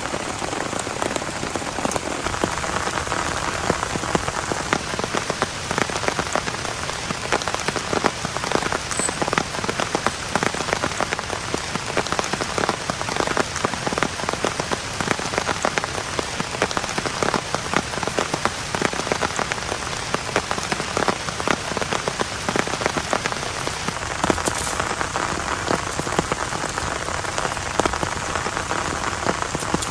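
Heavy rain falling steadily on a surface: a constant hiss dense with sharp individual drop hits.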